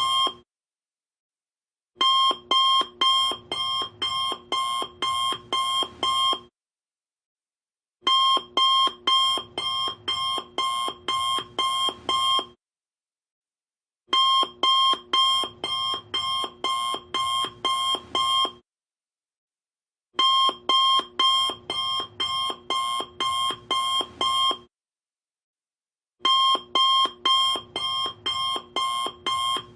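Alarm clock ringing in repeated rounds of about ten quick pulses, each round lasting about four and a half seconds, with about a second and a half of silence between rounds.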